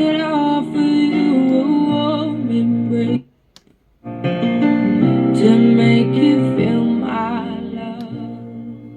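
Music with singing, keyboard and guitar played through a small portable Bluetooth pill speaker. It cuts out for about a second just after the three-second mark, then starts again.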